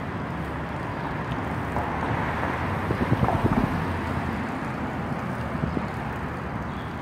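Wind buffeting a moving phone microphone, a steady rumbling rush with stronger gusts about three seconds in.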